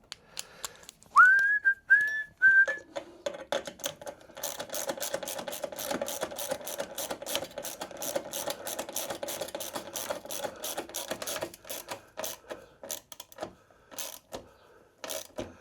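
A person whistles three short notes, each sliding up to a held pitch. Then comes a long run of rapid, even clicking from a tool tightening a bolt, followed by a few scattered clicks.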